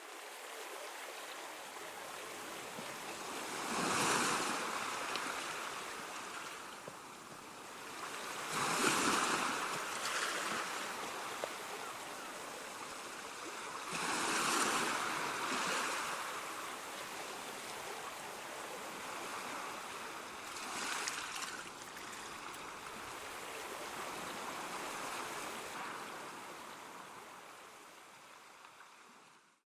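Steady rush of water that swells louder several times, a few seconds apart, like surf washing in.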